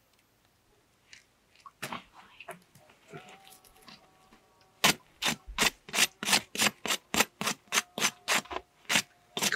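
A knife scraping the crust of freshly baked tandoor flatbread. A few scattered scrapes come first, then from about five seconds in a fast, even run of sharp scraping strokes, about three or four a second.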